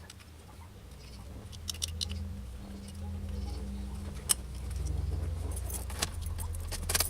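Light metallic jingling and sharp clicks, like keys or small hardware being handled, over a steady low hum that grows louder from about a second in.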